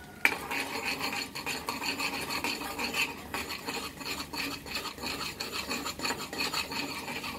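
Steel spoon scraping and stirring thick caramelised sugar syrup around a metal kadai: a continuous rasping scrape with many small clicks of metal on metal, starting with a sharp knock of the spoon. The syrup has just reached the ready stage.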